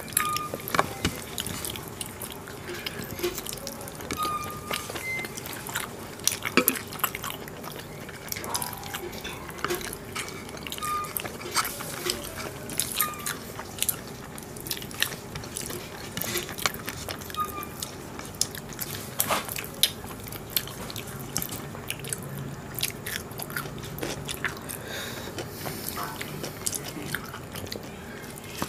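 Two people chewing mutton curry and rice eaten by hand, with their fingers mixing the food on the plates; irregular sharp mouth clicks and smacks throughout.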